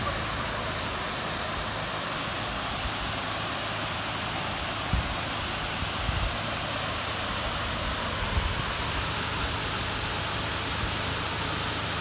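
Water pouring over a wide, low weir and rushing into a shallow stream below, a steady rush, with a few brief low thumps in the middle.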